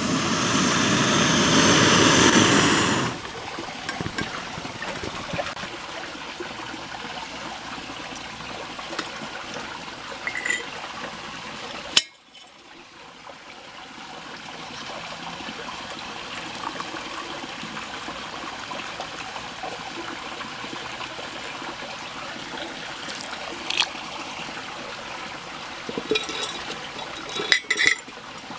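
A Kovea Camp 3 gas canister stove's burner runs loud and steady under a pot at the boil, then cuts off about three seconds in. About halfway through, boiled water is poured from a stainless steel pot into a plastic mug, with a few light clinks near the end.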